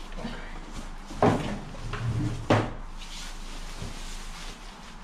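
Cardboard box and plastic wrapping rustling as an air fryer is lifted out of its packaging, with two sharp thuds about one and two and a half seconds in as things are set down on a wooden table.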